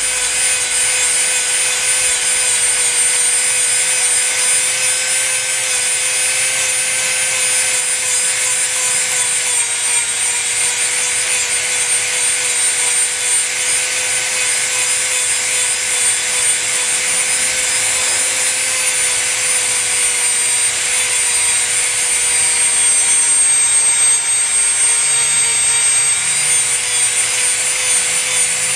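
Dremel rotary tool running with a steady high whine, grinding old paint off a composition doll part; its pitch sags slightly a few times as it bears on the work.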